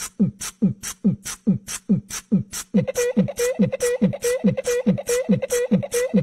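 Backing music track: a steady beat of deep thumps that drop in pitch, about three a second, with short hissy hi-hat-like hits between them. About three seconds in, a short clipped tone starts repeating on each beat.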